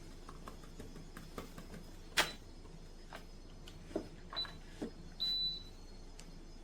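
Scattered clicks and knocks, the sharpest about two seconds in, with a few short high beeps and a brief rasping burst in the second half, over a faint steady hum.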